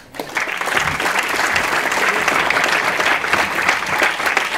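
Audience applauding: clapping breaks out a moment after the start and carries on steadily.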